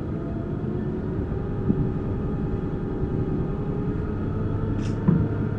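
Tour boat's motor running steadily under way: a low rumble with a faint whine that rises slightly in pitch.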